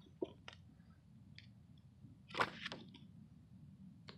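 Faint rustles and taps of paperback picture books being handled, the covers knocking and sliding against each other, with one louder tap about two and a half seconds in.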